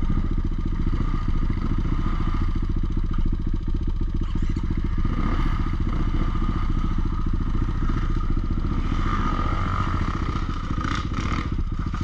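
Enduro motorcycle engine running steadily, with an even firing pulse.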